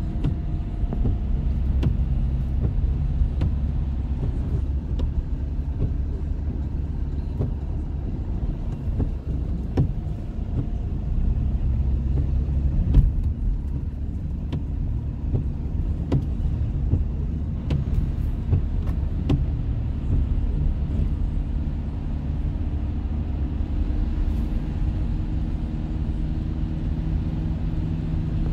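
Car driving on a wet, slushy road, heard from inside the cabin: a steady low rumble of engine and tyres, with scattered faint clicks and one louder knock about 13 seconds in.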